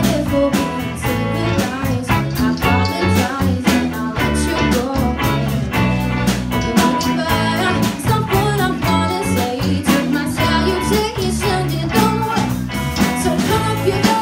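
Live rock band playing: electric guitars over a steady drum beat, with a singer's voice.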